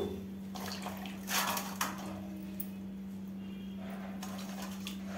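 A hand taking peeled small onions out of water in a steel bowl: a few short splashes and drips, the loudest about a second and a half in. A steady low hum lies under it.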